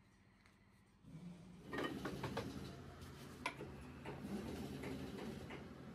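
Hand ratchet wrench clicking in irregular runs as it turns a fitting on a truck tie rod end held in a bench vise, with one louder metallic click about three and a half seconds in. A steady low hum starts about a second in and runs underneath.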